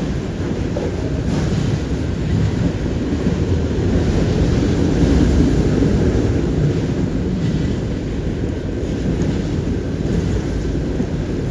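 Intermodal freight train cars rolling past, a steady low rumble, with wind buffeting the microphone.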